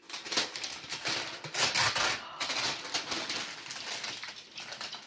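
Gift wrapping paper being torn and crinkled as a present is unwrapped, an uneven run of rustling tears that is loudest about two seconds in.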